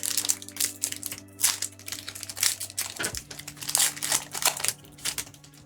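Foil Pokémon booster pack wrapper crinkling in irregular bursts as it is handled and opened, easing off near the end.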